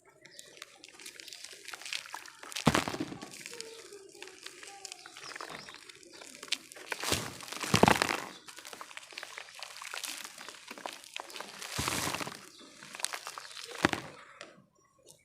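Chunks of packed red dirt crumbling and crunching by hand, with a steady gritty crackle broken by four loud snaps as lumps break apart, and grains pouring off.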